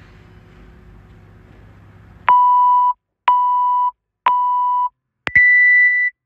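Workout timer countdown: three short beeps about a second apart, then one longer, higher beep that marks the start of the timed workout.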